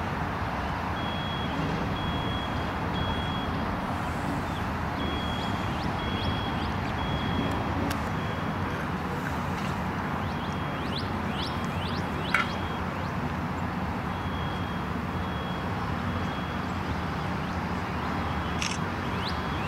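Steady low rumble of idling engines with a faint, intermittent high electronic beeping, like a vehicle's reversing alarm, repeating throughout. There are a few short high chirps, and a single sharp knock about twelve seconds in.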